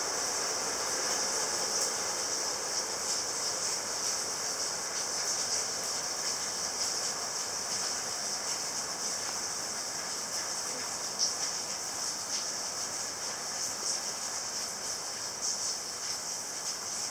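A steady hiss with a high shrill band running throughout, over which come faint small clicks from golden retriever puppies suckling at their mother.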